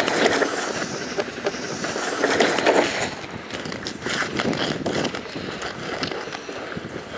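Quad roller-skate wheels rolling and scraping on an asphalt street, an uneven rumble that swells a few times.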